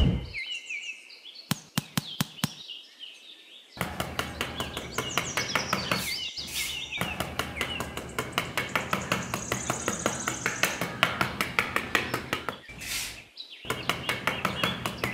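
A small metal hand trowel taps and pats over and over on a layer of sand, a rapid run of sharp little clicks with a pause near the end. Birds chirp behind it.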